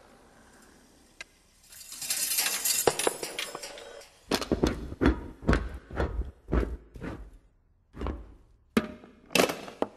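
Car parts in a chain-reaction contraption knocking into one another on a wooden floor: a scraping hiss for about two seconds, then a quick run of metallic knocks and clinks, about two a second, as each piece strikes and sets off the next.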